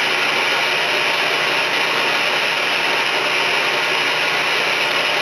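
Steady running noise of a shop machine working on an engine flywheel during balancing, where weight is being taken out of the flywheel about 6 grams a hole.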